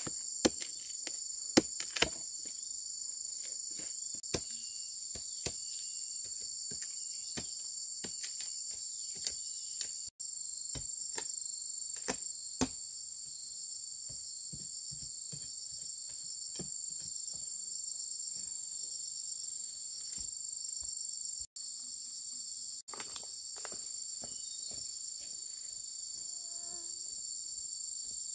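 Steady, high-pitched chorus of forest insects such as crickets or cicadas, with many irregular sharp clicks and knocks, thickest in the first half.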